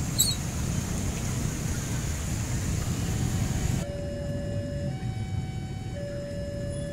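Motorcycle traffic rumbling across a level crossing. About four seconds in, after a cut, a railway crossing warning alarm sounds, alternating steadily between two tones held about a second each, signalling an approaching train.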